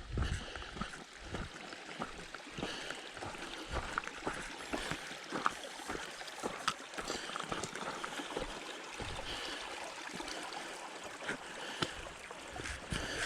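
A hiker's footsteps, irregular steps on the trail, over the steady running of a stream.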